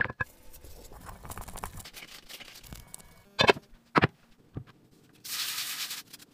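Chopsticks scraping and stirring through shaggy flour dough in a ceramic dish, a light scratchy sound. About halfway through come two sharp knocks half a second apart as the ceramic lid is set on the dish, and near the end a brief swish as flour is rubbed over a wooden cutting board.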